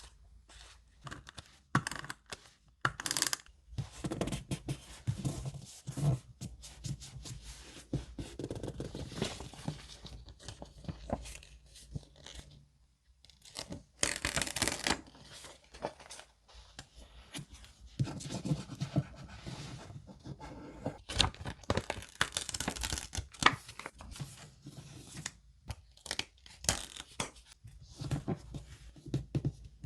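Paper being torn and crinkled by hand for a junk journal: irregular rips, rustles and crisp scratchy strokes, with a short lull about halfway through.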